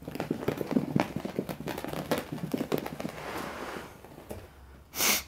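8-week-old beagle puppies scampering and tussling on carpet: a quick patter of paws and scuffling for about three seconds that fades into softer rustling, then a single short, loud burst near the end.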